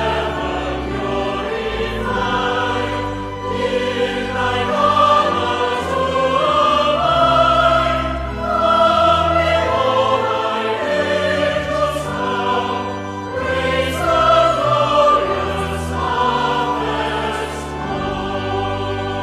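Choir singing a hymn in slow, sustained chords over held low accompaniment notes.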